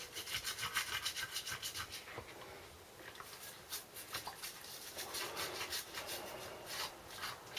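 A brush scrubbing dirt off a small-engine part in quick, rhythmic strokes, about five a second, easing off for a moment around the middle.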